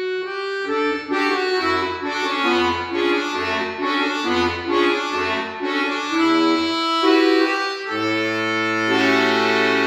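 Piano accordion played solo: a moving melody over low left-hand bass notes sounding about once a second, settling about eight seconds in onto a long held chord with the bass sustained beneath it.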